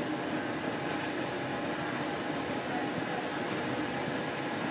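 Steady hum and hiss inside an InterCity 125 (HST) passenger coach as the train moves off slowly: the coach's air conditioning with the train's low running noise.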